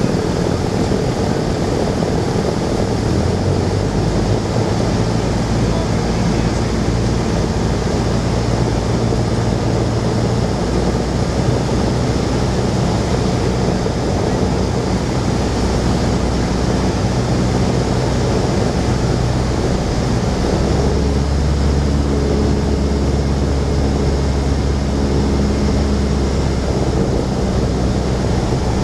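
Cessna 172's piston engine and propeller droning steadily, heard inside the cabin over a hiss of airflow, on approach to land. The engine note shifts about two-thirds of the way through.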